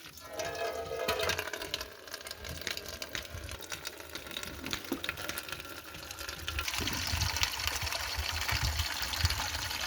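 Water pouring and splashing into a container. It is louder and brighter over the last few seconds.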